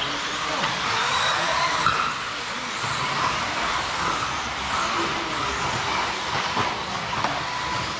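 Several 1:10 scale 4WD electric RC buggies with 13.5-turn brushless motors running laps. A dense mix of thin motor and drivetrain whines comes and goes with tyre noise on the track surface.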